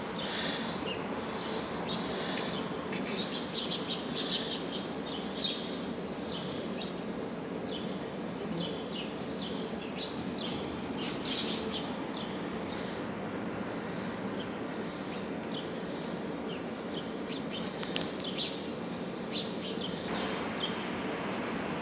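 Sparrows chirping, many short repeated chirps from several birds scattered throughout, over a steady background noise. One brief knock about five seconds in.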